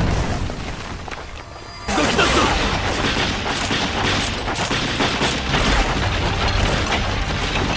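Anime battle sound effects: a sudden loud hit at the start, then from about two seconds in a dense barrage of rifle volley fire and booms, with music underneath.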